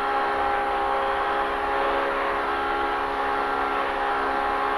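Polaris RZR Pro R UTV's four-cylinder engine running under way at a steady engine speed, its pitch holding level, over a constant rush of wind and terrain noise.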